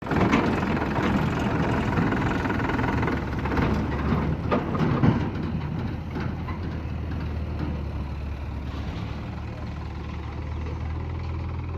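Heavy diesel engine running, loud and rough with a few sharp knocks over the first five seconds, then settling to a steadier, quieter hum.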